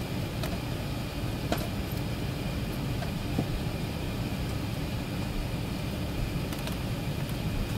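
Steady low cabin noise inside an Airbus A380 moving on the ground, its engines and air conditioning running, with a few faint clicks.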